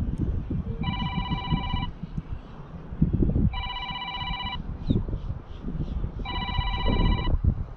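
An electronic ringing tone made of several steady pitches, sounding three times, each ring about a second long and spaced a little under three seconds apart, over wind buffeting the microphone.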